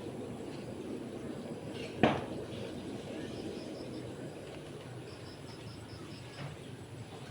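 A single sharp knock about two seconds in, over steady low background noise, with two short runs of faint, quickly repeating high chirps.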